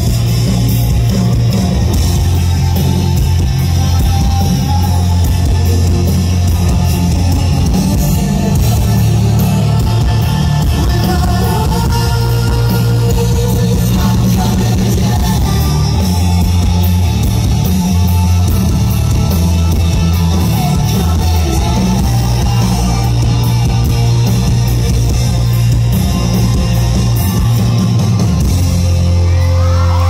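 Rock band playing live, heard from the crowd: electric guitars, bass and drums with sung vocals, loud and heavy in the bass.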